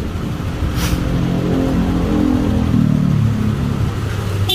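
Yamaha Aerox 155 scooter engine revved up and back down on a test after fitting a 15-tooth primary drive gear. The pitch rises about a second and a half in and falls away again toward the end, with a brief hiss about a second in.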